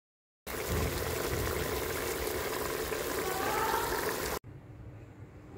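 Mutton pieces sizzling and bubbling in their own juices in a metal cooking pot. The sound starts about half a second in and cuts off suddenly about four seconds in, leaving a faint low hum.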